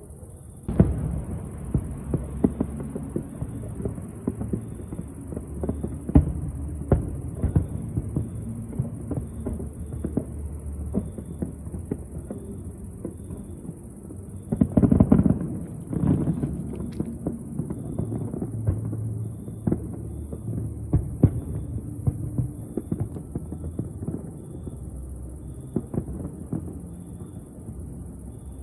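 Distant fireworks display: many sharp bangs and thuds over a low rumble, starting about a second in, with a dense volley of bursts about halfway through.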